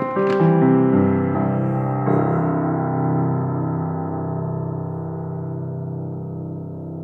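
C. Bechstein grand piano being played: a short run of chords in the first two seconds, then a final chord held and left ringing, fading slowly away.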